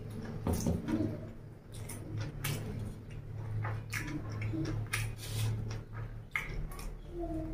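Close-miked mouth sounds of a person eating chow mein noodles and chicken by hand: wet chewing and lip smacks in a string of short clicks, over a low steady hum.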